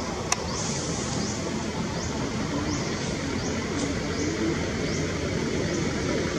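Outdoor background of a steady low rumble, with a short high rising chirp repeating about once or twice a second and a single sharp click just after the start.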